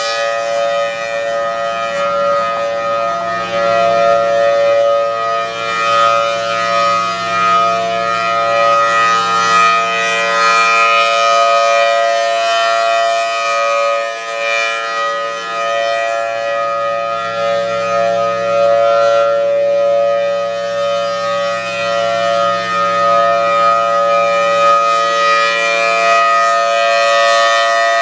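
Federal Thunderbolt 1003 dual-tone outdoor warning siren sounding a steady tone at full speed, its loudness swelling and fading as the rotating head sweeps past.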